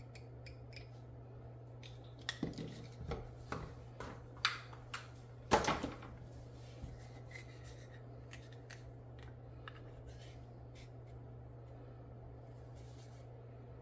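Plastic tube cutter biting through black heat shrink tubing: a run of sharp clicks and snaps a couple of seconds in, the loudest a little before the middle, then a few faint handling clicks. A low steady hum runs underneath.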